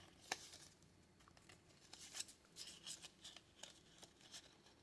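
Faint rustling and crisp clicks of stiff printed cards and paper being handled and shuffled, with one sharp tick just after the start.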